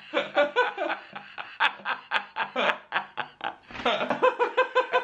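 A woman laughing hard through a cheek-retractor mouthguard that holds her mouth wide open, in quick pulses of several a second.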